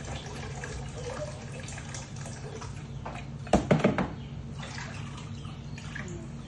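Water poured from an electric kettle splashing into a plastic baby bathtub already holding water, then a hand swishing through the water. A short cluster of louder knocks comes a little past halfway.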